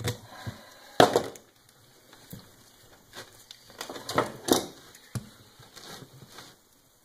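Scattered knocks, scrapes and rubbing as a riding-mower tire on its metal rim is worked by hand and with needle-nose pliers while fishing the inner tube's valve stem back through the rim's valve hole. The loudest knock comes about a second in, with a few more around four to four and a half seconds in.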